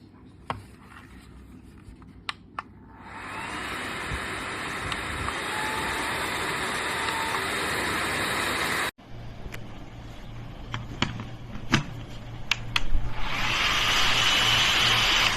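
Small battery-powered waist fan: a few clicks, then the fan running with a steady rush of air from about three seconds in. After an abrupt break near nine seconds come more clicks and a low hum, then the fan runs louder from about thirteen seconds in.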